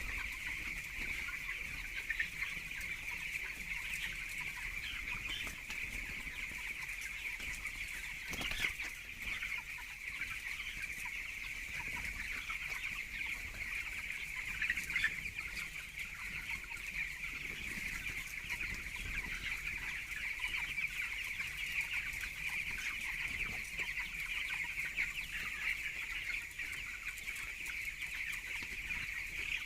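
A flock of 17-day-old chicks peeping continuously, many high chirps overlapping into a steady chorus.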